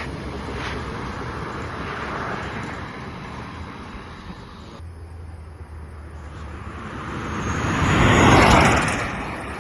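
Stripped-down Tesla driving past at speed: a rush of tyre and wind noise that builds to a loud pass about eight seconds in and then fades.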